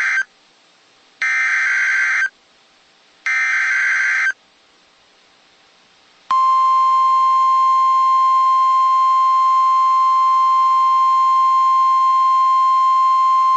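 Emergency Alert System SAME header: the end of one burst and then two more, each about a second long, of harsh warbling digital data tones, repeated like the start of an alert. About six seconds in, the steady 1050 Hz NOAA Weather Radio warning alarm tone starts and holds, the signal that a new warning, a Snow Squall Warning, follows.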